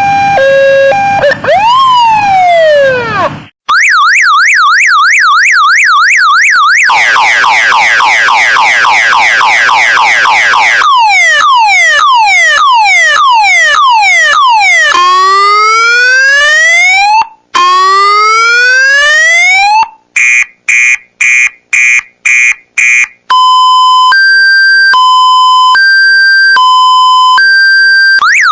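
Electronic siren tones played as a phone ringtone, switching pattern every few seconds. They run from a hi-lo two-tone through swooping glides, a fast warbling yelp and repeated rising whoops, to about two quick beeps a second, and end on a slower hi-lo two-tone.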